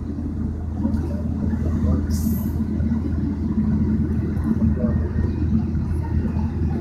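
Heavy old military lorry engines running steadily at low speed while hauling a long chain of coupled vehicles: a steady low rumble.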